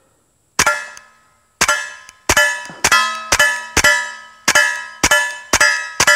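Suppressed KelTec P17 .22 LR pistol firing through an OSS Rad 22 suppressor: about ten shots, the first about half a second in, then after a one-second gap a steady string at roughly two a second. Each shot is followed by the ringing clang of a steel target being hit.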